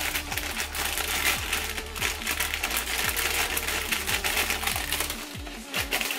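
Plastic bag of green grapes crinkling as a hand rummages inside it, picking grapes out: a dense, continuous crackle that eases near the end.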